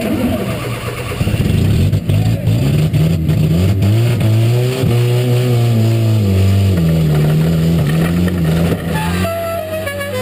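Race car's engine heard from inside the cockpit, revving as the car pulls away and then running hard, its pitch rising and falling with the throttle.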